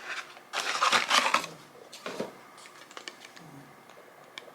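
Gift packaging being opened by hand: bursts of rustling and crinkling about half a second in and again around two seconds, then a few small clicks.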